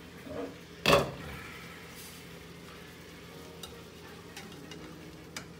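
Burger patties sizzling in a frying pan. About a second in, a glass pan lid is set down with one loud clatter and a short ring, and a metal spatula clicks against the pan a few times later on.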